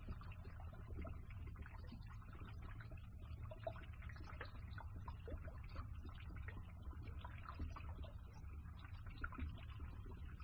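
Water gurgling and bubbling as it drains through a pipe, with many small irregular glugs over the steady low hum of a pump.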